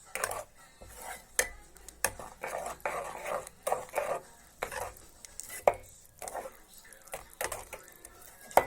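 A spoon stirring a thick honey, sugar and cocoa mixture in a pot, scraping round the pot in short repeated strokes, with a few sharp knocks of the spoon against the pot.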